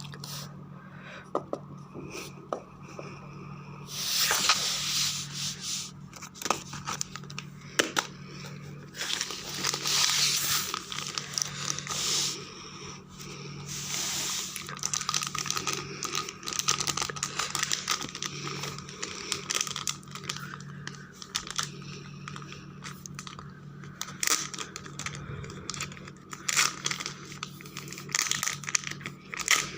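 Packaging of a Lego eraser being torn open and handled: irregular tearing and crinkling with small sharp clicks, over a steady low hum.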